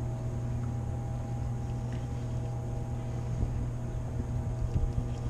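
A boat motor running steadily, a low, even hum.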